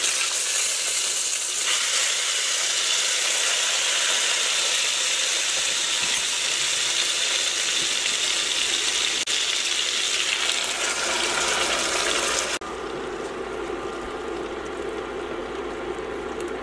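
Chicken pieces sizzling in hot oil in a stainless steel pot as they are turned. About three-quarters of the way through, the sizzle cuts off suddenly, leaving a quieter, duller sound.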